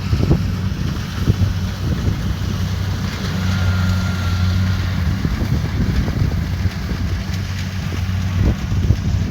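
Kubota DC70 Pro combine harvester's diesel engine running at a steady working speed, with wind buffeting the microphone.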